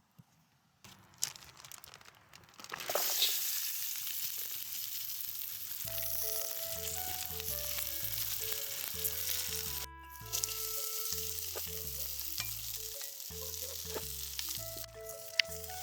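Food sizzling on the heat, a steady hiss that starts about three seconds in. Background music with a repeating bass line comes in about six seconds in and plays over the sizzling.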